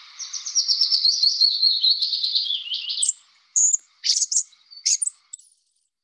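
Recorded songbird song: a fast run of high, thin notes that falls in pitch over about three seconds, followed by a few short, sharp high calls.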